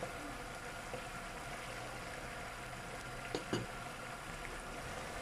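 Broccoli and meat in a thin sauce simmering in a frying pan over a gas burner: a steady bubbling, with two small clicks about three and a half seconds in.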